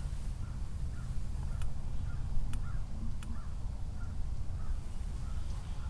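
Wind buffeting the microphone, a steady low rumble, with faint bird calls repeating in the background and a few light clicks.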